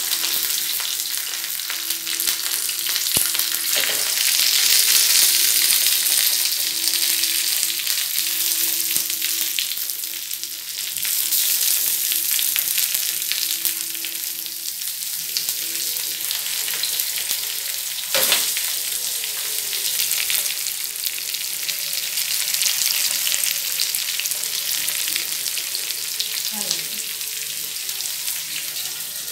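Semolina-coated milkfish pieces shallow-frying in hot oil on a flat pan: a continuous sizzle, strongest a few seconds in, with a couple of sharp clicks as more pieces are set into the pan.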